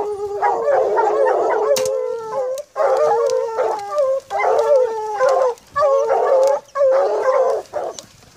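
Pack of lion hounds baying at a treed mountain lion, several dogs overlapping in drawn-out bawls about once a second with short breaks. This is the steady baying that tells the hunters the cat is treed.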